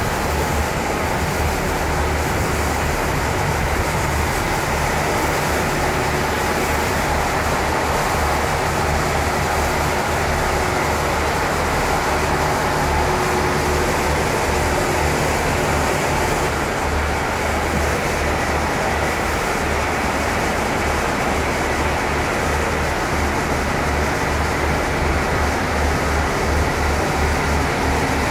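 Diesel railcars of the KiHa 40 series idling at the platform: a steady engine rumble with a low, uneven throb underneath.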